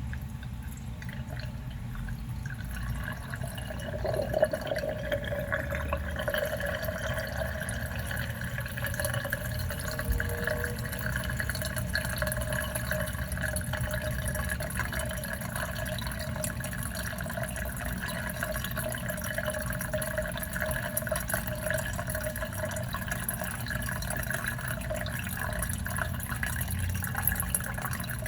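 Dishwasher running, water rushing with a steady hum that sets in a few seconds in and then holds steady.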